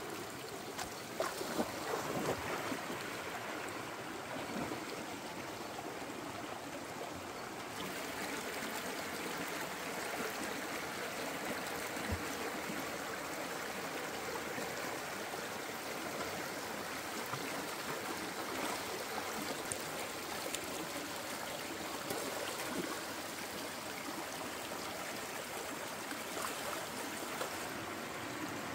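Shallow rocky stream running and babbling over stones and small cascades, with a few splashes about a second or two in.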